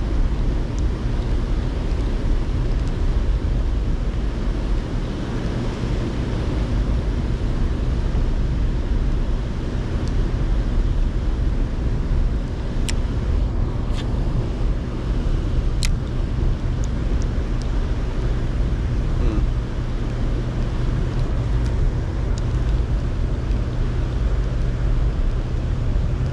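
Steady low rumble with a constant hum from the hydroelectric dam's powerhouse and the water running below it. A few sharp light clicks come about halfway through.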